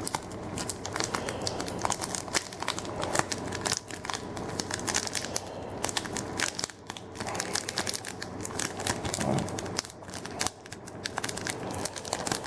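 Wrapper of a Yu-Gi-Oh! booster pack being torn open by hand, crinkling and tearing in a continuous stream of crackles.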